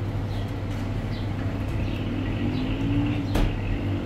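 A vehicle engine running steadily with a low hum, and a single sharp click a little past three seconds in.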